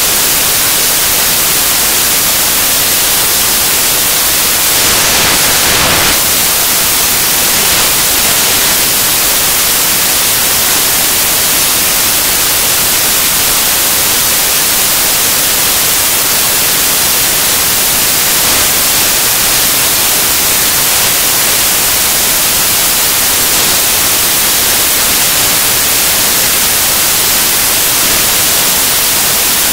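Loud, steady static hiss with no other sound standing out, growing slightly louder for about a second some five seconds in.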